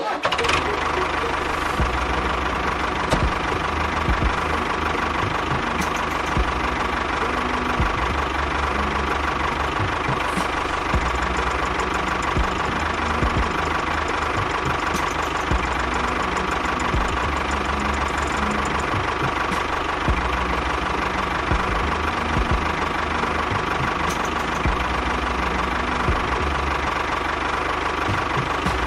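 A small motor running steadily, with a constant high hum and irregular low knocks.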